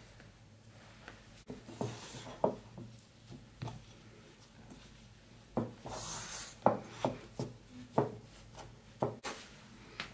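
A metal spoon and hands working a stiff flour-and-egg dough in a ceramic bowl, giving about ten scattered sharp knocks and scrapes against the bowl and a brief soft rubbing of the dough around the middle.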